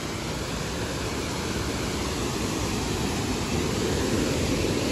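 Water pouring over a concrete dam spillway into a waterfall: a steady rushing that grows slightly louder.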